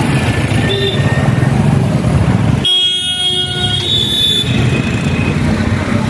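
Road traffic: vehicle engines running close by, with a short horn toot near the start and a longer horn blast about three seconds in that lasts over a second.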